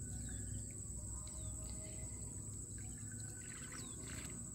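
Insects droning steadily at one high pitch, with a bird giving short, falling chirps every second or so, over a low rumble.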